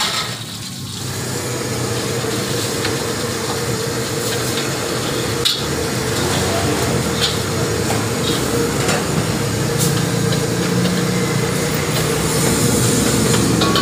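Water hissing in a hot steel wok as it is scrubbed out by hand, over the steady roar of a gas wok burner. A single sharp clack about five and a half seconds in.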